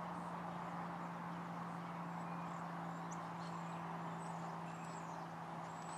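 Distant freight cars rolling along the rails, a steady rumble and hum of wheels on track with a few faint high chirps over it.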